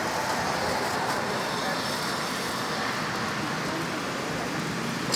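Steady roadside traffic noise: an even hum with no single event standing out.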